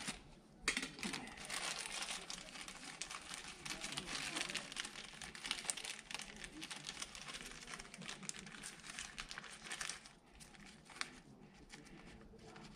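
Clear plastic packaging bag crinkling as it is handled and opened by hand. The crinkling is steady from about a second in and grows fainter near the end.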